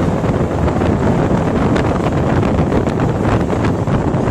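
Wind buffeting the microphone and the running noise of a passenger train in motion, heard from an open window of the moving train: a loud, steady rush.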